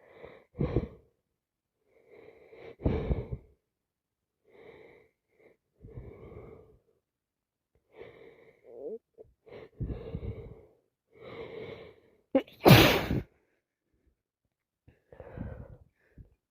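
A woman with a congested nose from sinusitis sniffing and breathing heavily in a string of short bursts, then one loud sneeze about three-quarters of the way through.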